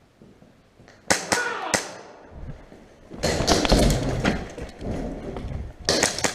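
Airsoft gunfire: three sharp snaps about a second in and two more near the end, with a loud stretch of rustling and movement noise between them.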